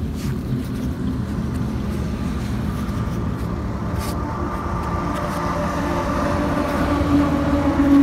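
Maruti Suzuki Swift VDi's diesel engine running as the hatchback drives slowly through a muddy, rutted track, growing a little louder as it approaches.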